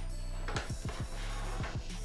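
Background music with a deep bass line and repeated deep drum hits that drop in pitch.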